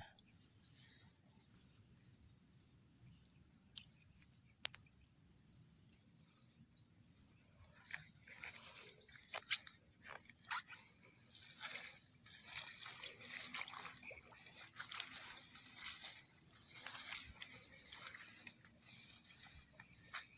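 A steady high-pitched insect chorus. From about eight seconds in, irregular splashing and sloshing of shallow paddy water joins it.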